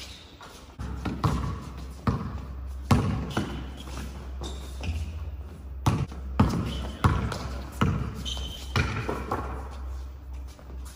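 Basketball bouncing and thudding irregularly on an indoor court's hard floor, each hit echoing in the large hall, over a steady low hum, with players' indistinct voices.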